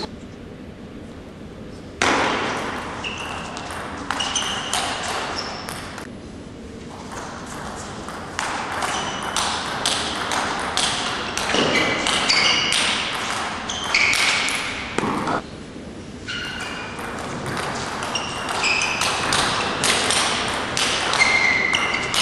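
Table tennis rally: the ball clicking rapidly back and forth off the paddles and the table, in several bursts with short lulls between.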